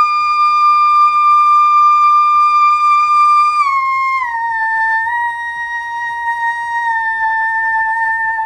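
A young woman singing one long, very high whistle-register note (the 'dolphin voice'), held steady, then stepping down twice to a slightly lower pitch about four seconds in and held to the end.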